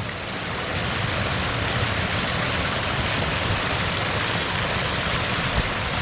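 Steady rushing of the Holtemme, a mountain river cascading down over rocks.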